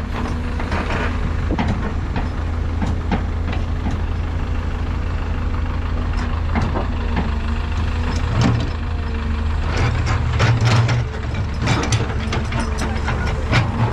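Heavy diesel machinery running steadily with a low drone, with scattered clanks and knocks that come thickest about ten to thirteen seconds in.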